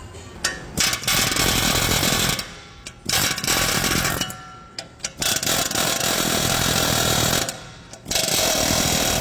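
Ingersoll Rand 119Max long-barrel pneumatic air hammer firing in four long bursts of rapid blows, with short pauses between them.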